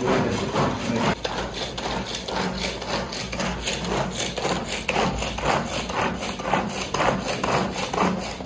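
Hand-pulled cord food chopper working through red onion: the cord is yanked again and again, each pull spinning the blades with a rasping stroke, giving a quick irregular series of strokes.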